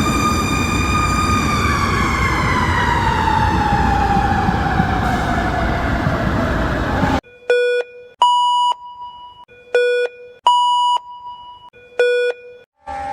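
Emergency alert alarm audio: a siren tone holds steady, then winds down in pitch over about five seconds and cuts off. Electronic alert beeps follow, short clipped chords alternating with longer steady tones, five in all.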